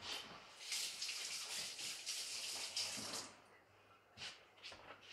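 Tap water running as hands are washed under it, starting a little under a second in and stopping about three seconds in. A few short knocks follow near the end.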